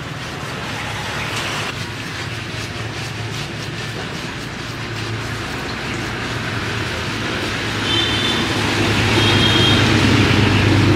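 A vehicle running: a steady low engine hum with road noise that grows louder near the end, and two short high tones about eight and nine and a half seconds in.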